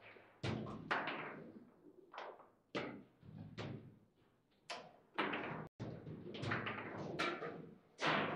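Table football in play: a rapid, irregular run of sharp knocks and clacks as the ball is struck by the figures and the rods are slammed, about a dozen hits in a few seconds.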